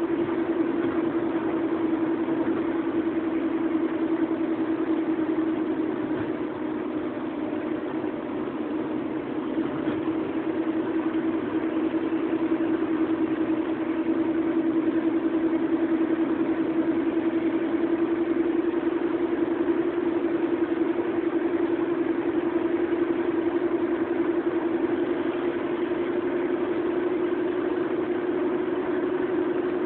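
Car driving along a road, heard from inside the cabin: steady engine and road noise with a constant drone that sags slightly in pitch and then rises a little near the end.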